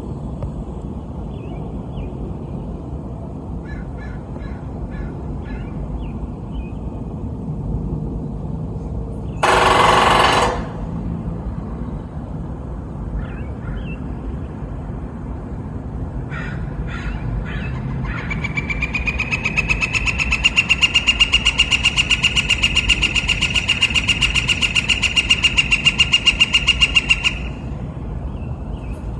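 Woodpecker drumming its beak on a metal fence. A few scattered knocks come first, then a long, very fast roll of strikes rings the metal with a steady high tone for about nine seconds before stopping. A steady low rumble runs underneath, and there is a loud one-second rush of noise about ten seconds in.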